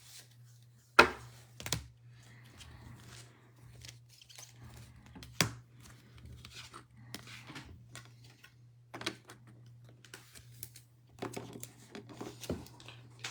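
Trading card packs and wrappers being handled: faint, scattered crinkling and tearing of packaging, with a few sharp clicks and taps, over a low steady hum.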